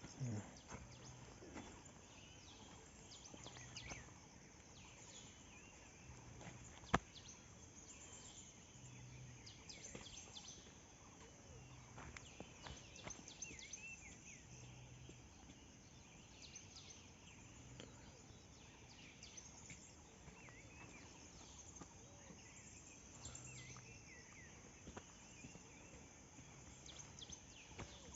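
Faint outdoor ambience: a steady high insect buzz with scattered bird chirps throughout. A low, short hum repeats about every two seconds, and there is a single sharp click about seven seconds in.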